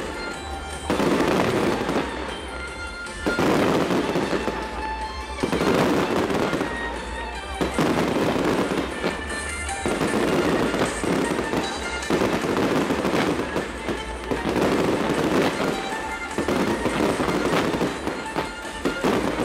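Pyrotechnic waterfall (a curtain of sparks raining down) crackling densely, swelling and easing in waves about every two seconds, with music playing underneath.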